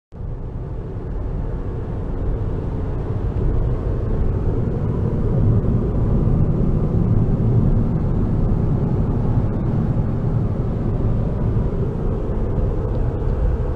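Road and engine noise inside a moving car's cabin: a steady low rumble that begins abruptly and grows a little louder over the first few seconds.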